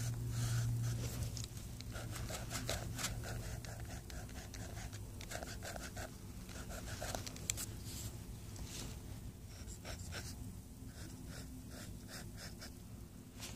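Irregular soft scratching and rustling close to the microphone, over a low steady hum that is strongest in the first second.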